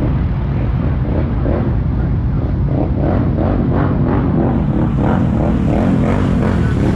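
ATV engine running loud and steady.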